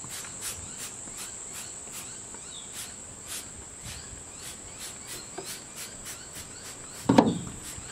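Insects chirping steadily, about three chirps a second. A brief louder sound comes about seven seconds in.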